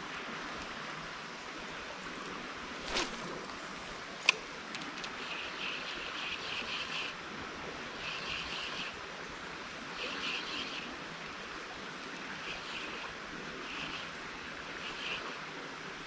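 Small mountain stream running over rocks: a steady rush of water. A brief swish comes about three seconds in and a single sharp click about a second later. Short, high rattling bursts recur from about five seconds on.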